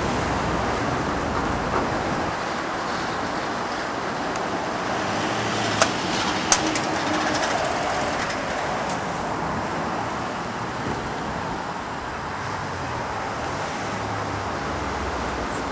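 Steady outdoor background noise, an even rushing rumble, with two sharp clicks a little under a second apart about six seconds in.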